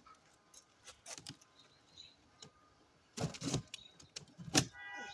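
A cardboard shipping box being handled and opened: scattered small clicks and scrapes, a longer scraping burst about three seconds in, and a sharp knock a second later.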